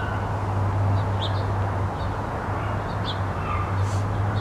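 Small birds chirping in short, scattered high calls over a steady low outdoor hum and background noise.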